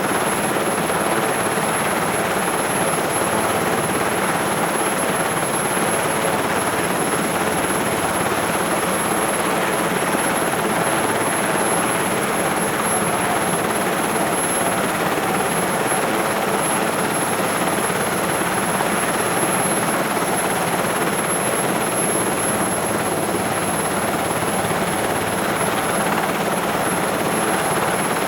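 Sikorsky SH-3 Sea King helicopter at idle, heard from inside the cabin: a steady, dense rush of its twin turboshaft engines and rotor, with a constant high-pitched whine over it.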